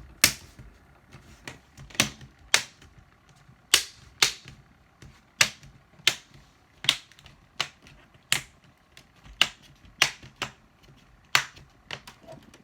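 Clips of an HP Pavilion 15-P100DX laptop's screen bezel snapping into place one after another as the bezel is pressed around its edges: a run of sharp, irregular clicks, one or two a second.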